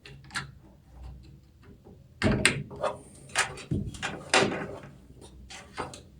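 Computer parts being handled inside a PC case: a run of sharp clicks, knocks and short scrapes, faint at first and louder from about two seconds in.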